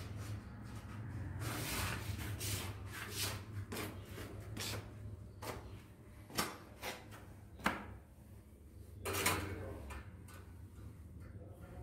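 Scraping and rubbing from a rat moving about inside a wire cage trap, with a few sharper scrapes past the middle, over a steady low hum.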